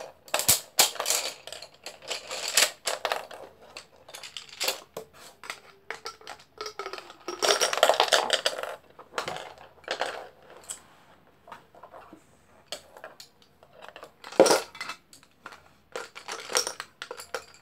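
Wooden colored pencils clattering and rattling against each other and their cylindrical case as they are pulled out and handled: a string of light clicks and knocks, a longer burst of rattling about halfway through, and one sharper knock near the end.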